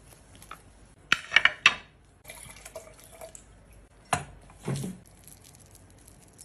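A quick run of three or four sharp clicks and knocks just after a second in, the loudest sounds here. About four seconds in comes a clink, then wine poured from a bottle into a stemmed wine glass.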